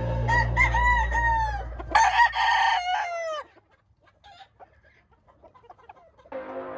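Gamefowl roosters crowing: two long crows one after the other, each rising and then dropping away at the end, then a lull.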